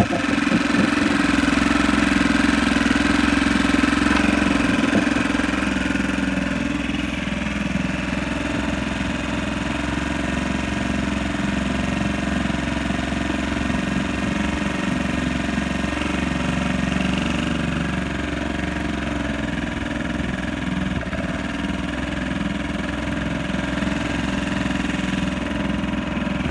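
1962 Montgomery Ward Sea King 3 hp single-cylinder two-stroke outboard motor running steadily, a little quieter after about six seconds. Its float needle is not seating, so it runs on too much gas and is choking out.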